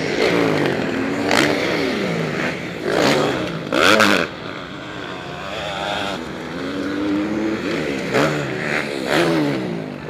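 Motocross bikes racing past on a dirt track, engines revving up and dropping back several times as the riders work the throttle. There are a few short noisy bursts, the loudest about four seconds in.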